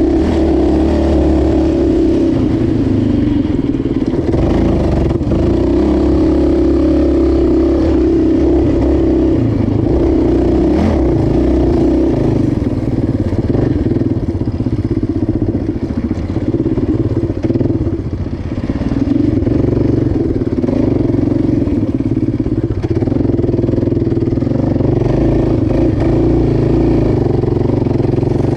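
Yamaha Raptor 700 ATV's single-cylinder four-stroke engine running under throttle while riding over dirt desert tracks. The engine eases off briefly about two-thirds of the way through, then pulls again.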